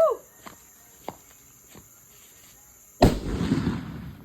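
A firecracker going off about three seconds in: a sudden loud burst followed by about a second of rumbling hiss that fades away. Before it come a short falling cry at the very start and a few faint clicks.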